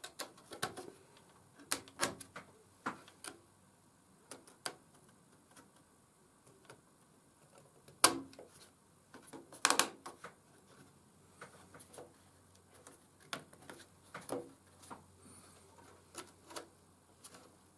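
Irregular small clicks and taps of a laser-cut wooden railing being pressed and slotted into holes in a wooden model bridge deck, with a few sharper knocks about 8 and 10 seconds in.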